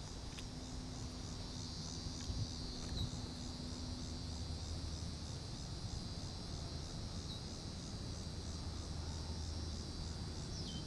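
Steady, high-pitched insect chorus with a fast pulsing trill, with a few faint clicks over it.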